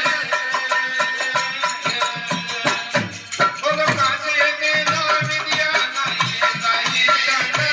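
Rajasthani desi veena bhajan music: a plucked stringed instrument sounds steady held notes over a regular rhythm of sharp percussive strikes.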